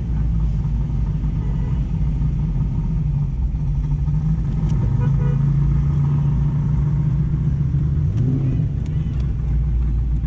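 Muscle car's engine and exhaust running steadily while cruising, with a short rise in revs about eight seconds in.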